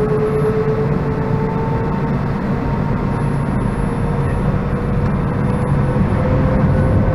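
Airbus A319-131 IAE V2500 turbofan engines at takeoff power, heard from the cabin: a steady, loud rumble with an engine tone that rises slowly in pitch.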